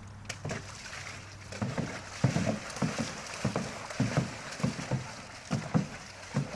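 Water sloshing and slapping in a plastic stock tank, stirred up by horses playing in it. It comes as irregular low, hollow splashy thumps, roughly two a second, starting about a second and a half in.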